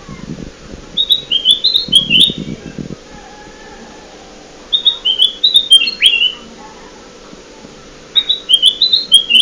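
Kutilang emas (a bulbul) song: a quick phrase of short chirpy notes stepping down in pitch, repeated three times about three and a half seconds apart, as played to lure wild birds.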